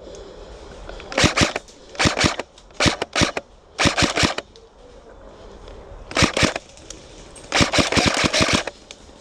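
Airsoft rifle firing six short bursts of rapid fire, with a longer burst of about a second near the end.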